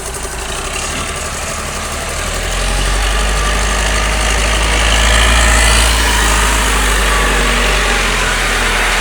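Dump truck engine running steadily, getting louder about two and a half seconds in and staying at that level.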